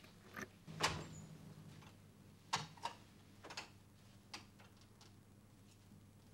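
A door being opened: a handful of sharp clicks and knocks, the loudest with a dull thud about a second in, then scattered clicks over the next few seconds, over a faint room hum.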